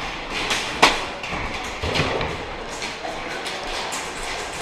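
A scattered series of sharp clacks and knocks with a few low thuds, the loudest clack about a second in: airsoft gunfire and players moving through a room during close-quarters play.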